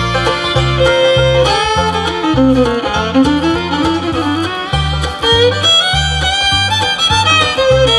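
Bluegrass band playing an instrumental break: a fiddle takes the lead melody over guitar and steady, alternating bass notes.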